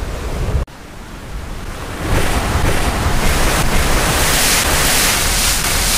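Recorded ocean surf: a steady rushing wash of waves. It drops away abruptly just under a second in, then swells back up from about two seconds in and stays loud.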